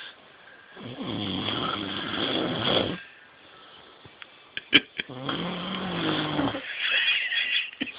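A man snoring: two long snores of about two seconds each, with a pause of a couple of seconds between them. A few sharp clicks come just before the second snore.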